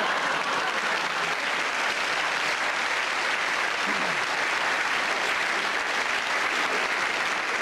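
Theatre audience applauding steadily after a comedian's punchline.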